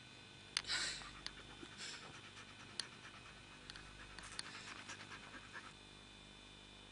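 A dog panting close to the microphone: a loud breath about half a second in, then quick, rapid breaths that stop near the end.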